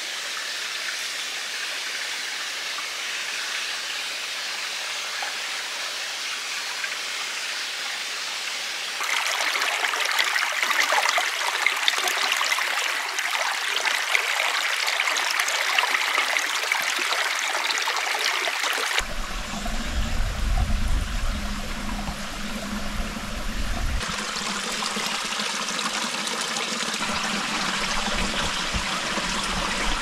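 Steady rush of running water. The sound changes abruptly about 9, 19 and 24 seconds in, and a low rumble is added underneath from about 19 seconds on.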